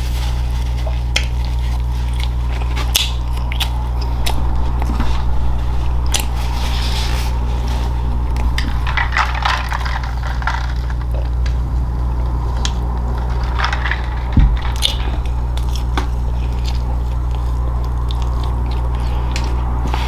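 Close-miked eating: biting and chewing crunchy food, with scattered sharp clicks and short crunchy bursts over a steady low hum.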